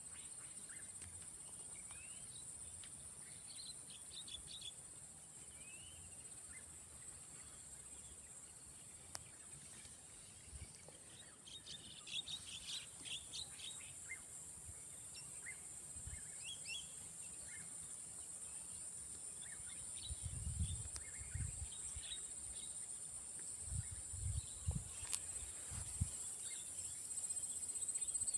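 Outdoor natural ambience: a steady high-pitched insect drone with scattered short bird chirps, busiest about halfway through. A few low bumps come near the end.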